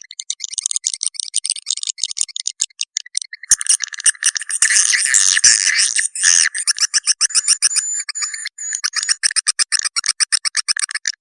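A swiftlet call-sound recording (suara panggil walet) of the kind played to lure swiftlets. It is a high-pitched mix of dense twittering chirps and rapid clicking trills. It grows thicker about three and a half seconds in, then settles into a fast, even run of clicks near the end.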